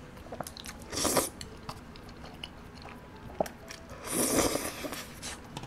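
Noodles slurped up with chopsticks twice, a short slurp about a second in and a longer one about four seconds in, with soft chewing clicks in between.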